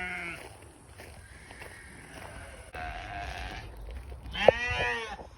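Sheep bleating: one call right at the start, a fainter one in the middle, and another strong call about four and a half seconds in.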